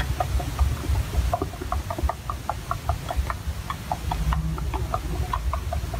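Metal spoon beating eggs in a ceramic bowl, clinking against the bowl about four times a second, over a steady low rumble.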